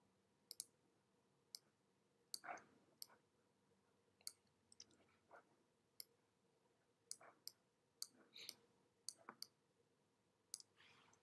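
Faint, scattered clicks of computer input while editing, about a dozen in all, several coming in quick pairs like double-clicks.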